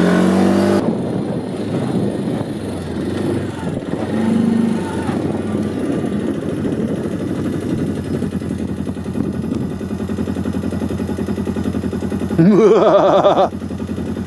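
Can-Am 450 ATV engine running steadily, with a brief louder surge of wavering pitch near the end.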